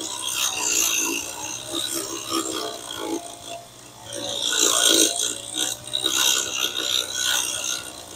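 Gas-powered walk-behind sidewalk edger running, its blade cutting the lawn edge along a sidewalk. The grinding, scraping noise swells and dips, quietest about four seconds in and loudest just after.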